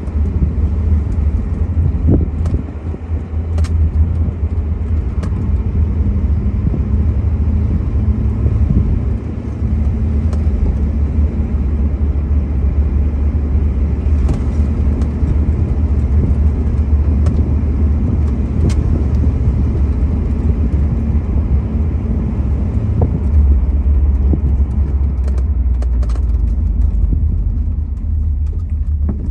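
1963 Ford Thunderbird's V8 running as the car cruises along a road. A steady low engine note with tyre and road noise.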